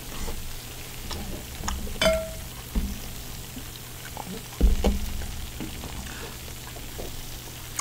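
Close-miked eating of cheese-covered fried chicken: scattered crackly crunching and wet chewing clicks, with a couple of dull low thumps, the louder one a little past the middle.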